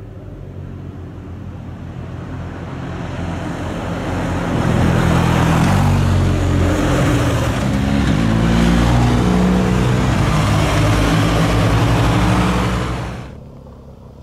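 Motorcycle engine running, growing louder over the first few seconds with its pitch shifting, together with a broad rushing noise, then cutting off abruptly near the end.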